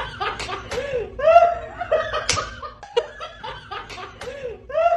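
High-pitched laughing in a run of short, arching bursts, a few a second, with sharp slap-like clicks in between.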